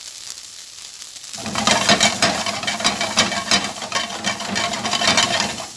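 Chicken gizzards sizzling in a frying pan with a little oil. About a second and a half in they are stirred, and a louder run of scraping and clattering over the sizzle lasts until just before the end.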